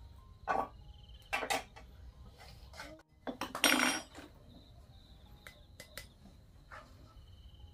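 Ladle knocking and scraping against a cooking pot and ceramic bowls as rice porridge is dished up: a few separate clatters, the loudest and longest about four seconds in, then a handful of lighter clinks.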